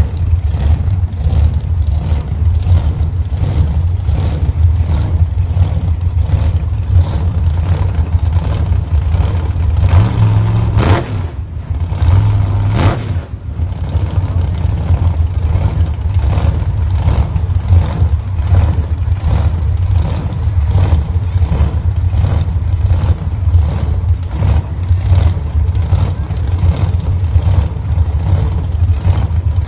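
Blown big-block drag car engine idling loudly with a choppy, lumpy rhythm at the starting line, revved briefly twice about ten and thirteen seconds in.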